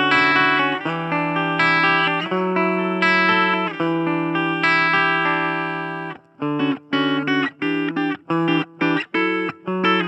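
Gibson Les Paul Standard electric guitar played through a Blackstar Fly 3 mini amp on its clean channel, with the ISF tone control turned fully to the left. Chords ring out and are held for a second or two each, then from about six seconds in give way to short, clipped chord stabs about twice a second.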